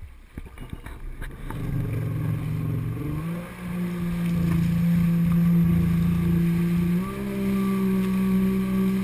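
An engine comes up from a low, rough sound about two seconds in and settles into a steady, even note, its pitch stepping up once about seven seconds in as it speeds up.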